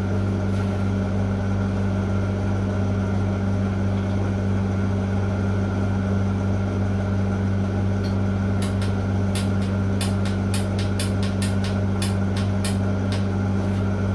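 A steady, unwavering low hum from running machinery, with a quick irregular run of sharp clicks in the second half.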